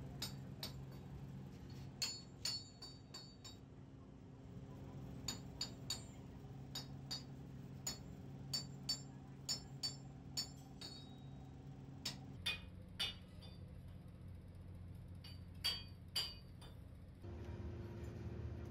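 Sharp metal-on-metal clinks, each with a brief high ring, coming irregularly throughout, over a steady low hum.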